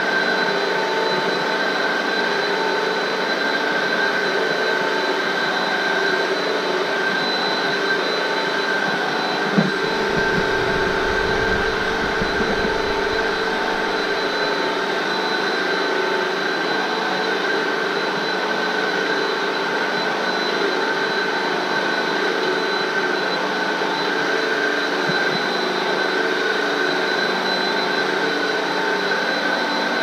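Hoover bagless upright vacuum cleaner running steadily with a constant motor whine as it is pushed back and forth over a floor mat. About ten seconds in there is a single brief knock, then a few seconds of low rumble.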